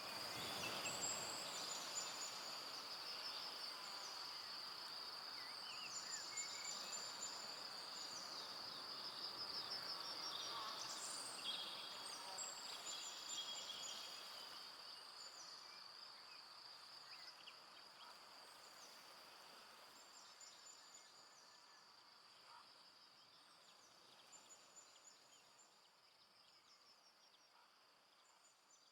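Forest evening ambience: a steady, high, pulsing insect trill, like crickets, with scattered short bird chirps over a soft background hiss. From about halfway, everything fades gradually down.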